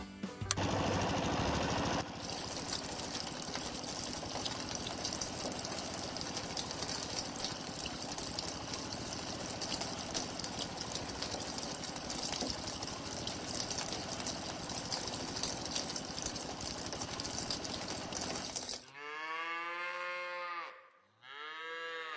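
A steady noisy hiss with a fine mechanical rattle, like a small motor or running water, that cuts off suddenly; then two cow moos, each rising and falling in pitch, the second starting near the end.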